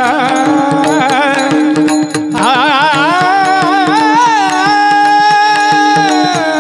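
Male voice singing a devotional Varkari kirtan melody in the Bhairavi chaal, with heavy ornamented wavering about halfway through and then one long held high note, over a steady drone. Small hand cymbals (taal) clash in a steady rhythm.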